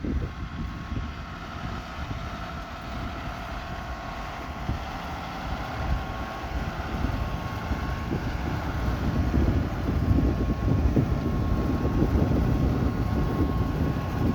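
A John Deere 6155R tractor's six-cylinder diesel engine running while it cuts hay, with a steady high whine, growing louder as it comes closer. Wind buffets the microphone.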